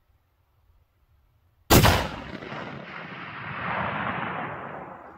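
A Ruger Precision Rifle in 6.5 PRC fires a single shot about a second and a half in: a sharp, loud crack followed by a long rolling rumble that swells again about two seconds later and then slowly fades.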